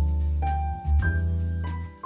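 Background music: a keyboard melody of single notes, changing about every half second, over a steady bass line.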